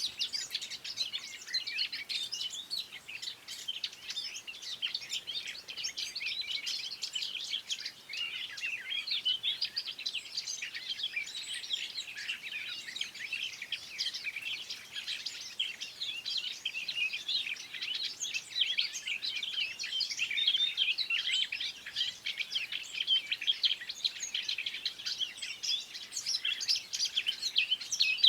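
Several songbirds singing and chirping together in a dense, continuous chorus of quick high chirps and trills.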